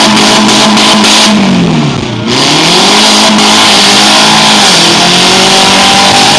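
Demolition derby car engines running loud and revving, one engine's pitch dropping and climbing back about two seconds in, with another brief dip near the end.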